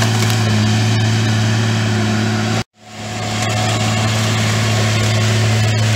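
Fabtek FT-133 tracked feller buncher running steadily at one constant pitch, a low hum with overtones. About two and a half seconds in the sound cuts out abruptly for a moment, then fades back up.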